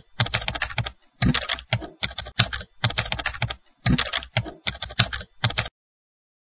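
Typing on a keyboard: bursts of rapid key clicks with short pauses between them, stopping abruptly about five and a half seconds in.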